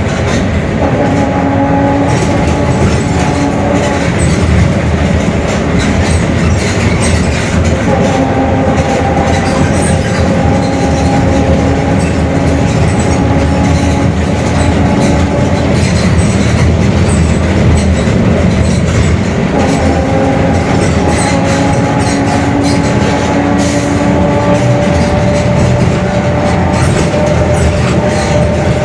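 Mercedes-Benz OF-1721 Bluetec 5 city bus under way, with engine and road noise throughout. A steady whine from its differential comes in for several seconds at a time, three times: the differential is howling.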